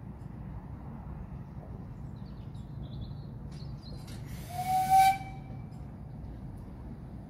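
Miniature 10¼-inch gauge steam locomotive whistle giving one short, hissy blast about four and a half seconds in, lasting about a second, over a steady low background rumble.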